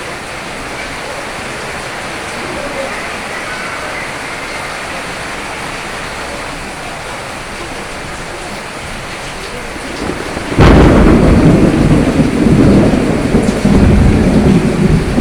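Steady heavy rain. About ten seconds in, a sharp thunderclap breaks in and gives way to a loud, rolling rumble of thunder over the rain.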